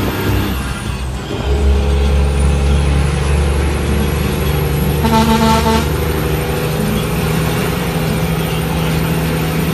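Kenworth W900L's Cummins N14 diesel heard from inside the cab while driving, a steady low engine drone; the engine note dips briefly about a second in, then comes back deeper and louder. A short horn toot sounds about five seconds in.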